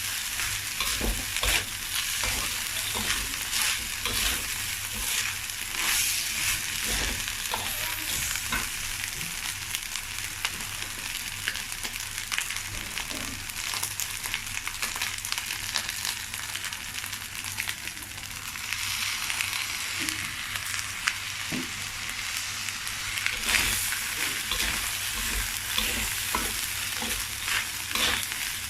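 Uncooked rice stir-fried in a hot pan, sizzling steadily, with frequent scraping and clicking of a spatula stirring it against the pan. The rice is browned by light soy sauce and is being fried dry before stock goes in.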